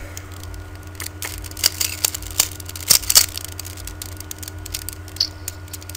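Plastic Rubik's cube being twisted by hand: irregular clicking and clacking of the layers turning, in a quick flurry of turns in the middle.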